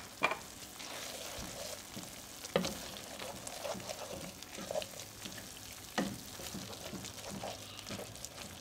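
Creamy cauliflower mash heating in a nonstick pan and being worked with a plastic masher: a soft, steady sizzle under the stirring, with several knocks of the masher against the pan, the sharpest about two and a half and six seconds in.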